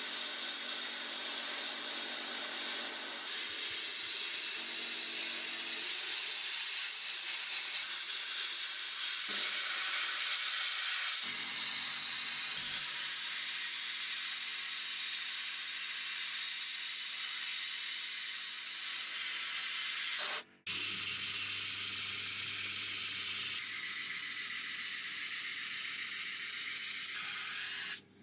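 Steady compressed-air hiss, with faint low hum underneath, changing abruptly three times as at cuts between takes.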